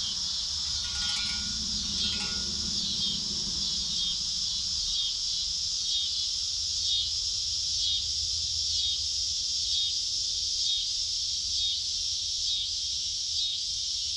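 Chorus of insects, a steady high chirring that swells about once a second.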